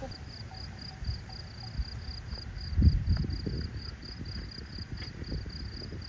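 An insect chirping steadily in a high pitch, about four chirps a second. A low rumble swells briefly about three seconds in and is the loudest thing.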